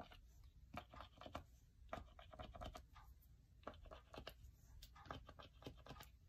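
Faint, irregular little taps and scratches of a Posca paint pen's fine tip dotting white stars onto watercolor paper.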